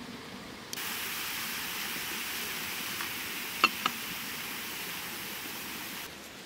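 A steady hissing noise that starts abruptly about a second in and stops abruptly near the end, with two sharp clicks in the middle.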